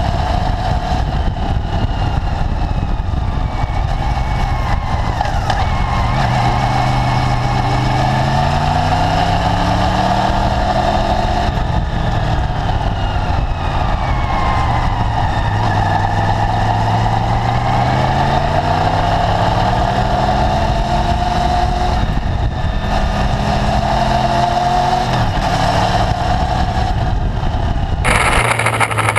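Motorcycle engine running under way, its pitch rising and falling several times as it accelerates and eases off, over steady wind and road noise from an onboard camera. The sound changes abruptly about a second before the end.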